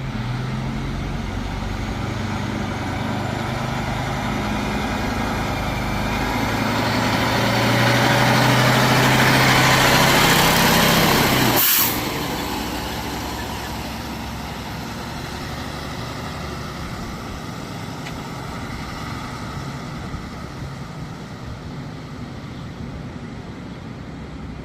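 Fire truck engine running as the truck pulls away, building louder until about halfway through. Then the sound drops abruptly, and a quieter engine fades out.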